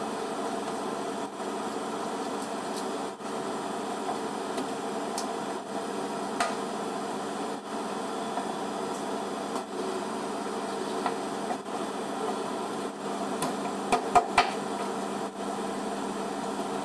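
A long knife cutting fish on a plastic cutting board: sporadic light knocks and taps of the blade on the board, a few louder knocks about fourteen seconds in, over a steady hum.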